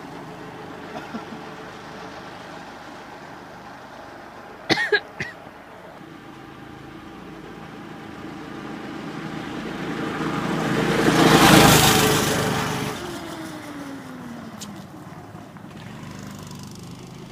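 Manco Dingo go-kart engine running as the kart drives up. It grows louder to a peak about eleven to twelve seconds in, then its pitch drops as it slows. A short sharp crack comes about five seconds in.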